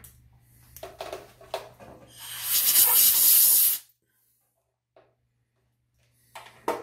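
A loud hiss of compressed air from a blow gun, starting about two seconds in and lasting about a second and a half, clearing swarf and cutting oil off a freshly threaded brass part on the lathe. A few light metallic clinks come just before it, over a steady low hum.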